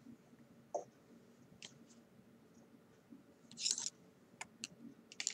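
Metal double-pointed knitting needles clicking faintly and now and then, with a short, louder scrape about three and a half seconds in as a needle is worked through the stitches.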